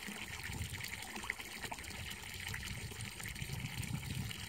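Faint, steady rumbling noise with a few soft ticks, and no distinct event.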